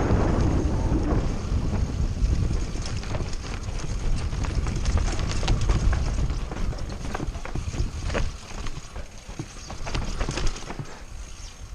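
Mountain bike clattering over rough rocky ground at speed: a rapid, irregular run of knocks and rattles from the tyres and bike, with wind rumbling on the microphone. The rumble eases off in the last few seconds.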